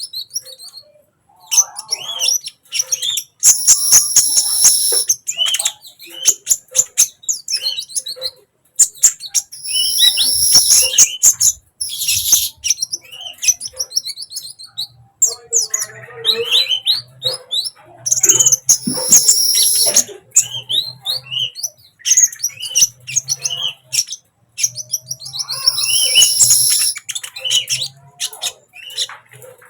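Sunbird in full song: rapid high-pitched chirps and twitters, broken by about five loud, high trilling bursts a few seconds apart.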